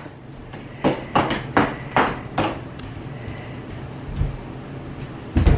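Toddler's plastic dress-up high heels clacking on a hard kitchen floor, about five clacks in a row, roughly two a second. A heavy thump follows near the end.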